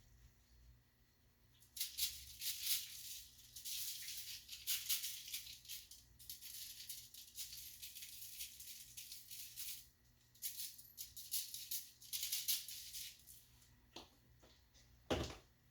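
Garlic salt being shaken from a plastic shaker bottle onto chicken wings: a dry, hissy rattle of granules in two long spells of shaking with a short break about ten seconds in, then a couple of short knocks near the end.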